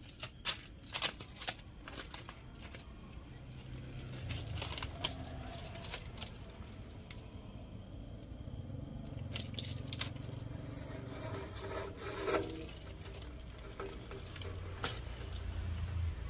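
Hands handling a silica gel breather canister for a transformer as it is fitted: scattered clicks and rubbing, most of the clicks in the first few seconds, over a low hum that comes and goes.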